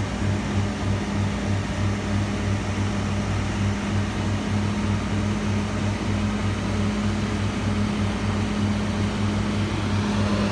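Barber-Greene asphalt paver's diesel engine running steadily at work, a constant low hum with a fast, even throb.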